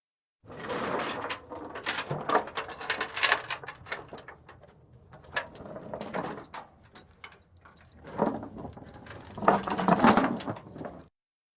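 Chain ratchet and its steel chain clicking and rattling in irregular bursts, loudest near the end; the sound starts and stops abruptly.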